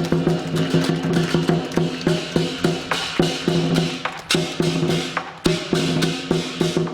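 Lion dance percussion: a drum beaten in a fast, driving rhythm with crashing cymbals ringing over it, several strikes a second.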